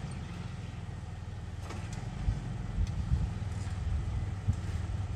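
Jeep Wrangler engine running at a low, steady rumble as it crawls up a rock slope, with a few scattered knocks from the tyres and rocks.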